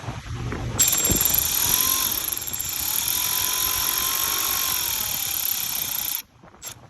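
Milwaukee 2559-20 cordless 1/4-inch drive extended reach ratchet running for about five seconds, its motor whirring with slight shifts in pitch as it backs out a 12 mm bolt on a clutch master cylinder. It cuts off suddenly, with a short blip just after.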